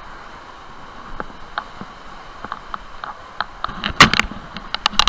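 Handling noise from an action camera in a waterproof case: a steady hiss with scattered clicks and knocks, a loud cluster of knocks about four seconds in and a quick run of clicks near the end, as the camera is carried and bumped over rocks.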